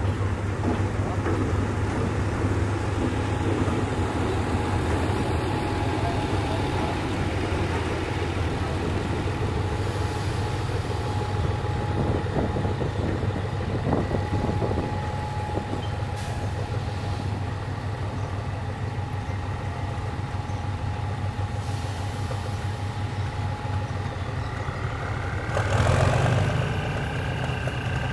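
Diesel locomotive running with a steady low drone as it moves a rake of passenger coaches through a rail yard, with a faint whine holding one pitch for much of the time. Near the end a louder sudden sound with several high steady tones rises over the engine.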